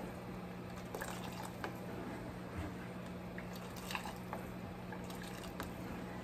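Red chile sauce poured from a ladle back into a saucepan, with drips and light irregular taps of the ladle against the pan, over a faint steady low hum.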